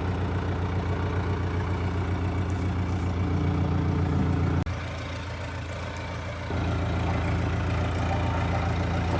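Heavy vehicle engine idling steadily, its pitch stepping up slightly about three seconds in. A little later the sound drops away abruptly for about two seconds, then the idle comes back just as suddenly.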